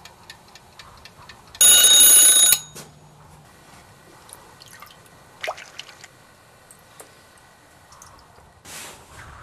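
Mechanical twin-bell alarm clock ticking faintly, then its bell ringing loudly for about a second before it is cut off abruptly.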